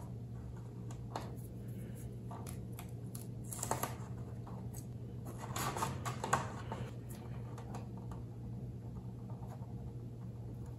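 Hands handling a plastic model ship hull and tape: soft scraping and rustling as the stern halves are pressed together and taped, the loudest bits about four and six seconds in, over a steady low hum.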